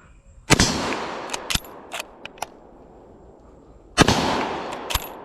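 Two shots from a Long Branch Lee-Enfield .303 British bolt-action rifle, about three and a half seconds apart, each followed by a long echoing tail. Between the shots come several sharp metallic clicks as the bolt is worked to eject the spent case and chamber the next round.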